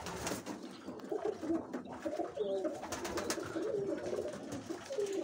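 Domestic pigeons cooing: a run of low, wavering coos starting about a second in.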